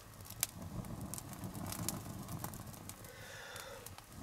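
Small wood fire crackling, with scattered sharp pops over a low rushing noise.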